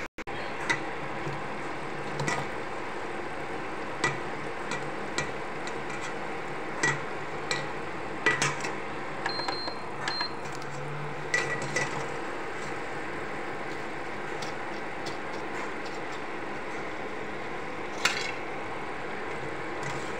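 Pakoras deep-frying in hot oil in a steel kadai, a steady sizzle, with a metal skimmer clinking sharply against the pan a dozen or so times as the fritters are turned and lifted out.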